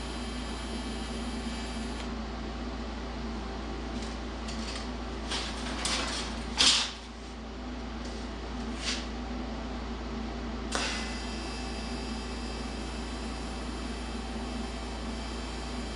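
Air compressor running with a steady drone. About halfway through, a handful of short hissing bursts from an air tool cut in; one sharp burst is the loudest.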